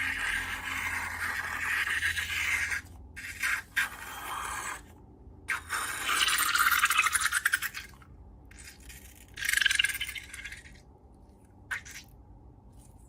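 Wet, crackly scraping and squishing of slime being worked with rubber balloons. It comes in several separate bursts, the longest and most crackly in the middle, with a short click near the end.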